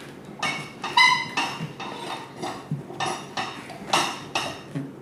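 Rubber tire bead scraping and squeaking against the wheel rim as it is forced onto the wheel on a manual tire changer, with a sharp squeak about a second in, and metal clinks and knocks from the changer. The tire is a stiff, tight fit on the wheel.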